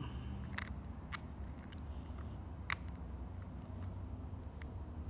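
Fine-pointed tweezer tips picking at the cracked cover glass of an Apple Watch Series 5, giving about five short, sharp clicks at uneven intervals as glass shards are prised, over a low steady hum.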